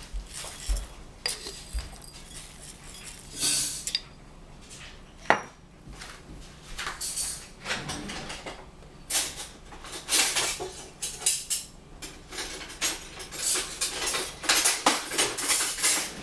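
Salt shaken from a container over sliced cucumbers in a bowl, to salt them for pickling: a run of short, hissy rattling shakes, with a sharp click about five seconds in.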